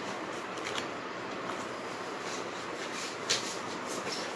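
Steady room hiss with a few faint short clicks or rustles, the clearest about three seconds in.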